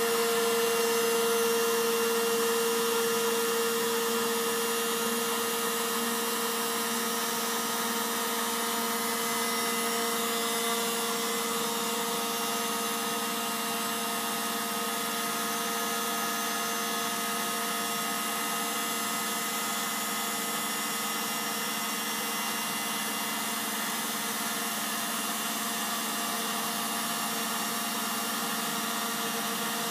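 CNC machine running steadily, a constant whine over an even hiss.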